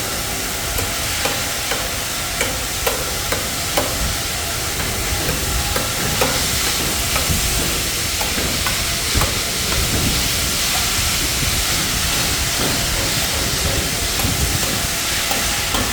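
Hand tools scraping and tapping on wet concrete, a rasping scrape with a run of sharp knocks in the first few seconds and scattered ones after, over a steady noisy hiss.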